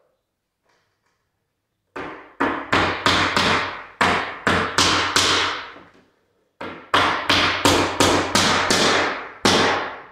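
Hammer striking a laminate-covered stair in two quick runs of blows, about two to three a second, each blow ringing briefly.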